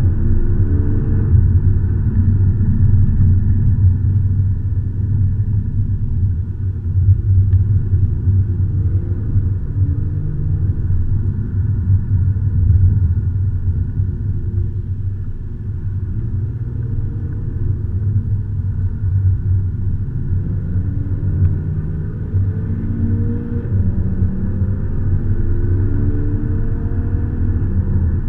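Car engine and road rumble heard from inside the cabin while driving, a steady low drone with the engine note rising several times as it accelerates.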